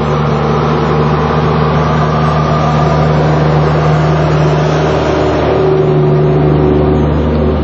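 Steady low motor hum, loud and unchanging throughout.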